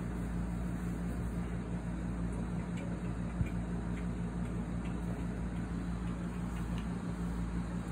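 Steady hum of a room air conditioner, a low drone under an even hiss, with one faint click about three and a half seconds in.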